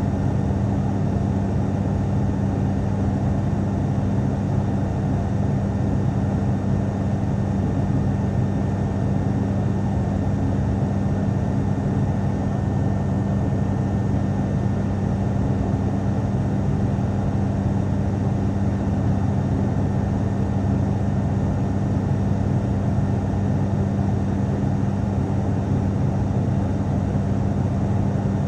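Cabin drone of an ATR turboprop airliner in flight: a steady, even rush of noise under a constant low hum.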